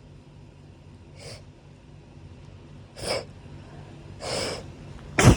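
A person with hay fever sniffing sharply through the nose twice, drawing a longer breath about four seconds in, then a loud sneeze near the end.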